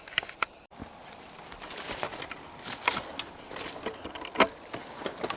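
Footsteps crunching over rocky, brushy ground, an irregular run of crunches and clicks as someone hikes up a hillside.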